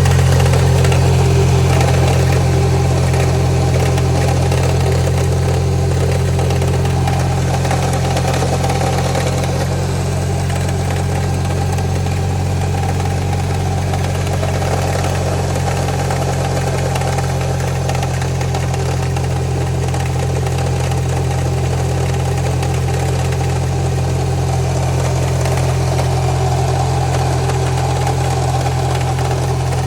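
Subaru EJ20X turbocharged flat-four engine idling steadily, with a noise in it that the owner asks may be rod knock.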